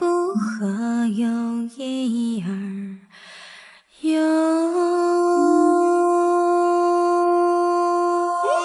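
A voice singing a short melody of changing notes, then, after a brief breathy pause, holding one long steady note for about four seconds that slides upward at the end.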